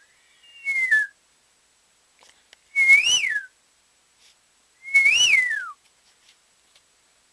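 Pet parrot whistling three times: a short falling whistle, then two louder whistles that rise and fall, about two seconds apart.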